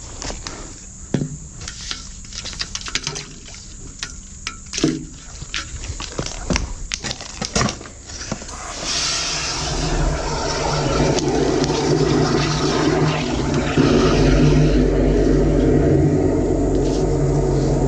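High-pressure drain jetter washing out a sewer pipe: scattered clicks and knocks at first, then about eight or nine seconds in a loud, steady rush of water spraying and flowing through the drain takes over and keeps going.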